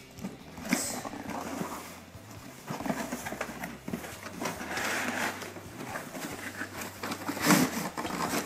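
A cardboard toy box and its tape and plastic packaging being handled and pulled open: irregular rustling, scraping and tearing, loudest about seven and a half seconds in.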